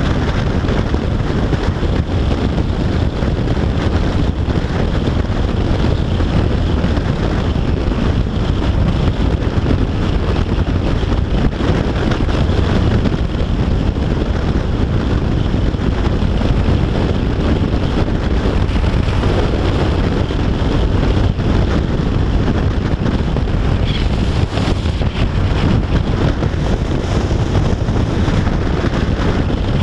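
Yamaha FJR1300AE motorcycle riding at motorway speed: steady, heavy wind noise on the microphone, with engine and road noise underneath.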